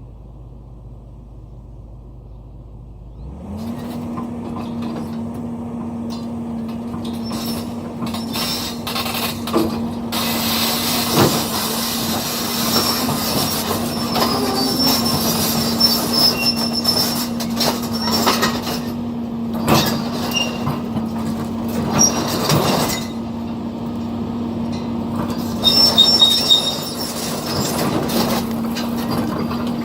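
Excavator's diesel engine rising in revs about three seconds in and then running steadily under load, while its steel tracks and the machine clank, knock and give high-pitched squeals as it works its way over concrete rubble.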